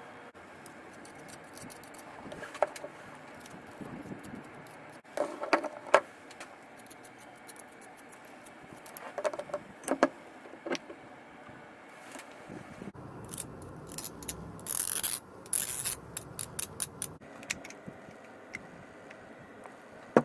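Small hard parts and tools clicking, clinking and knocking in irregular handling, with a short hiss a little past the middle and a quick run of ticks near the end.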